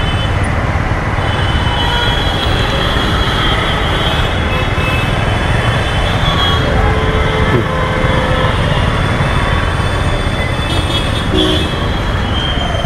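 Dense city road traffic heard from a motorcycle riding in heavy traffic: a steady rumble of engines, with a horn sounding briefly about seven seconds in.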